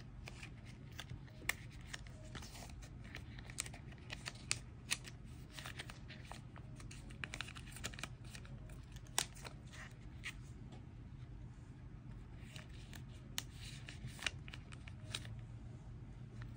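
Photocards being slid into the clear plastic sleeves of a small collect book: soft scattered clicks, taps and crinkles of card and thin plastic over a faint steady low hum.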